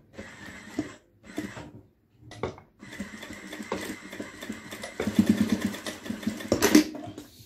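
Electric sewing machine stitching fabric: a few short bursts of stitching, then a longer continuous run of rapid, even stitches that gets louder near the end.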